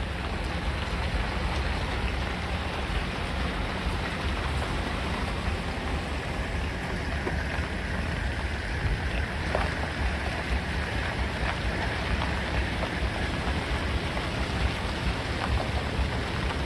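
Steady rain falling, with scattered drop ticks over a constant low rumble.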